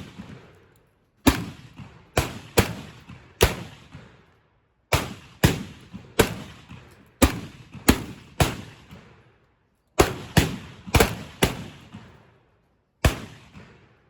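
Black-powder percussion revolvers firing about fifteen sharp shots in uneven clusters of two to four, with short pauses between. Each shot is followed by a brief echoing tail.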